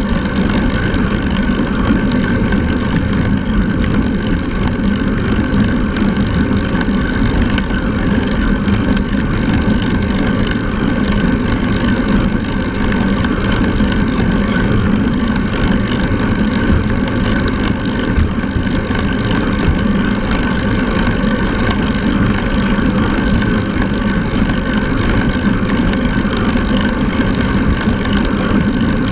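Steady rush of wind over the microphone of a handlebar-mounted camera on a moving road bike, mixed with the hum of the tyres on asphalt.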